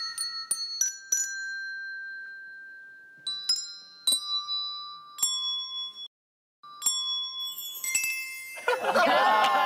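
Hand-held handbells struck one at a time, each a single bright ringing note that fades slowly, picking out a slow melody note by note with uneven pauses. Near the end a louder swell of music takes over.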